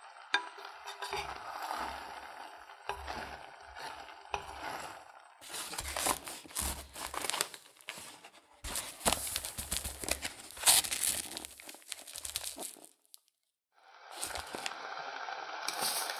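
A paper bag of granulated sugar crinkling and rustling as it is handled and opened. Before that, a wooden spatula scrapes and stirs cooked azuki beans in a metal pot. After a short break near the end, a steady hiss begins as sugar pours into the pot.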